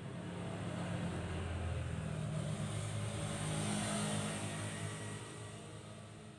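A motor vehicle's engine running, with a low drone that swells to its loudest about four seconds in and then fades away.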